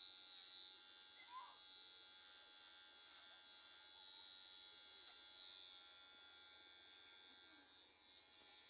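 Electric hair clipper running with a steady high-pitched whine while cutting hair, growing fainter near the end.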